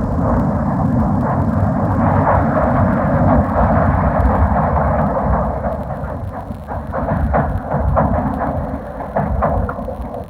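Test recording of a train running past on rails: continuous rumble with clattering wheel knocks that grow more distinct in the second half. It plays back from a Super 8 film soundtrack and sounds muffled, with almost no treble.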